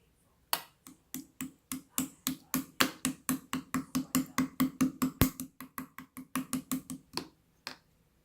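A long run of sharp slaps or claps in a steady rhythm, speeding up from about three to about four a second, each with a dull thud under it, stopping shortly before the end.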